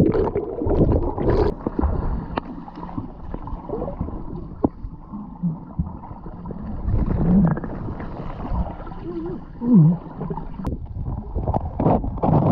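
Muffled underwater sound from a camera held below the surface of a lake: water gurgling and sloshing around the housing, with a few brief low muffled tones. The churning grows louder near the end as the water stirs up sand and foam.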